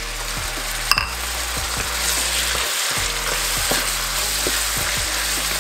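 Diced pork sizzling as it fries in oil with freshly added soy sauce, while a wooden spoon stirs and scrapes it around the pan. The hiss is steady and grows a little louder over the first couple of seconds, with a brief knock about a second in.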